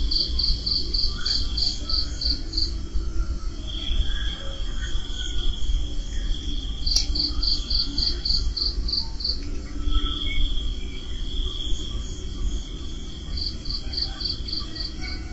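Night insects chirping: three runs of quick, even chirps at about four a second, each lasting two to three seconds, alternating with a steady high trill. Underneath runs a steady low rumbling noise.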